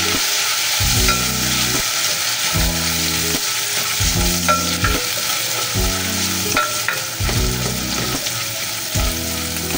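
Chopped onion and garlic sizzling in hot oil in a glass pot, stirred with a spatula, with a few light scrapes and taps against the pot.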